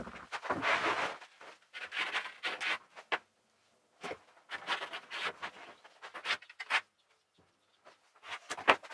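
Wooden batten and folding ruler being slid and set down on a plywood sheet: wood scraping and rubbing on wood in short bouts, with a sharp knock near the end.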